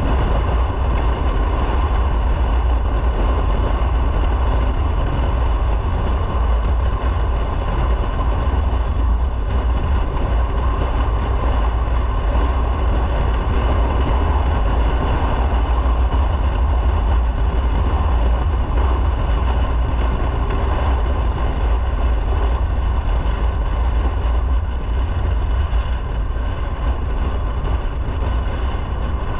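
Motorcycle riding along at steady speed: engine and wind noise make a continuous rumble with no breaks.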